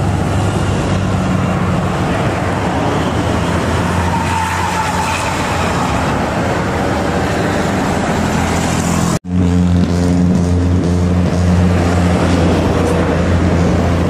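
Road traffic passing close by: bus and vehicle engines running over a steady wash of tyre and road noise. There is an abrupt break about nine seconds in, after which a nearby engine hums low and steady.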